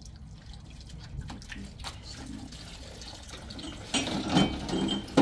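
Water running from a kitchen tap into a metal sink while dishes are rinsed, with small knocks of dishes being handled. The handling gets louder about four seconds in.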